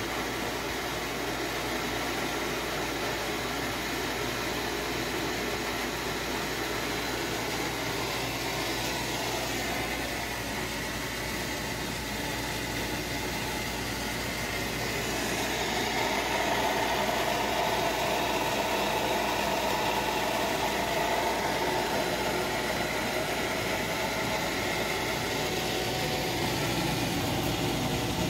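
Half-horsepower electric circulation pump of a home-made hot tub running with a steady hum, a little louder from about halfway through.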